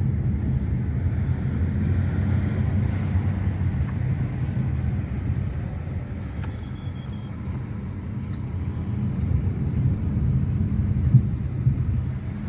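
A 2023 Nissan Qashqai with the 1.3-litre petrol engine being driven: a steady low rumble of engine and road noise that eases slightly around the middle and builds again near the end.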